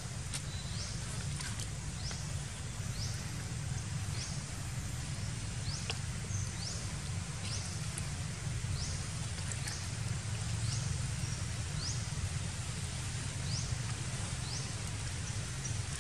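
Outdoor ambience: a steady low rumble under a high, short rising chirp repeated roughly once a second.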